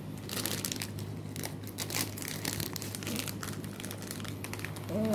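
Foil snack packaging crinkling and crumpling in irregular crackles as it is handled and pulled open.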